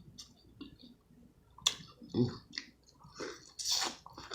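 Close-up eating of seafood-boil shellfish: wet chewing with scattered sharp clicks and cracks of shell. A louder noisy burst lasts about half a second near the end.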